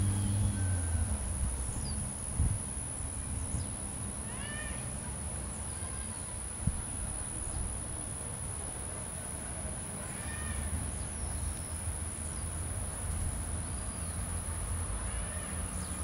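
A bird's short calls, each rising and falling in pitch, about three clear ones several seconds apart. Under them run a steady high-pitched whine and a low rumble.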